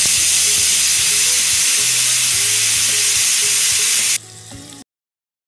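Food frying in hot oil: a loud, steady sizzle that drops off sharply about four seconds in, leaving a fainter sound for about half a second before it stops.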